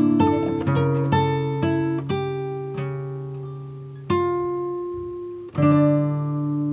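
Background music: acoustic guitar playing plucked notes and chords, with new chords struck about four and five and a half seconds in.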